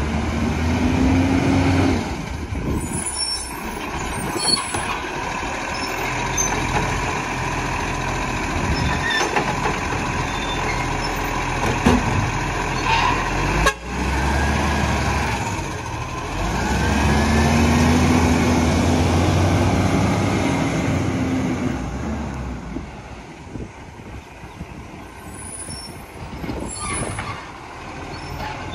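Side-loader garbage truck: the diesel engine runs as the truck pulls up to a wheelie bin, with a sharp bang about halfway through. A whine rises and falls as the hydraulic arm works the bin. Later the truck fades as it drives away down the street.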